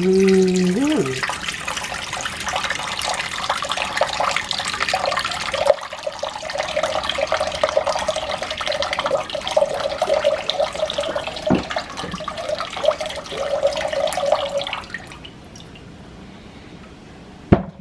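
Coconut water pouring in a steady thin stream from a knife-pierced coconut into a ceramic bowl, splashing for about fifteen seconds and then stopping.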